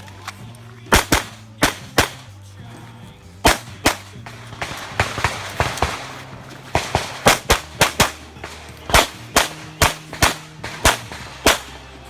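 Handgun fired rapidly through a competition stage: about twenty sharp shots, many in quick double-taps, with brief pauses between strings.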